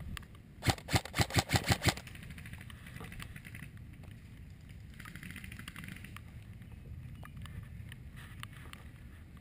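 Airsoft gun firing a quick string of about eight sharp single shots, roughly six a second, about a second in, followed by low steady outdoor background noise.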